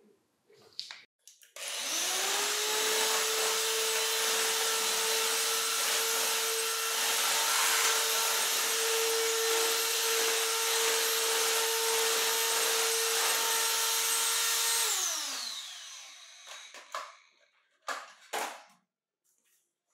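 Electrolux Ergorapido cordless stick vacuum switched on. Its motor spins up quickly to a steady whine over the rush of suction, running on its newly replaced lithium-ion battery pack. After about thirteen seconds it is switched off and the whine falls in pitch as the motor spins down, followed by a few light knocks near the end.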